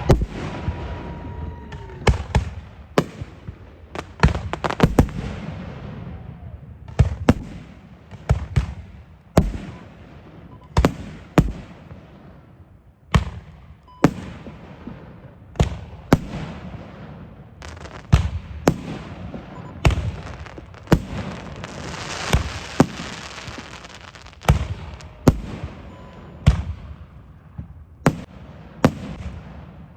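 Fireworks display: sharp bangs of bursting fireworks every second or two, with a denser stretch of hissing and crackling about two-thirds of the way through.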